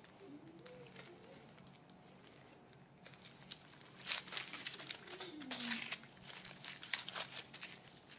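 Foil wrapper of a chocolate surprise egg crinkling as fingers handle it and peel it off, starting about three seconds in after a quiet stretch.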